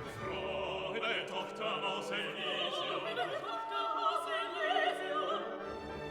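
Classical background music: an operatic voice singing with vibrato over an orchestra.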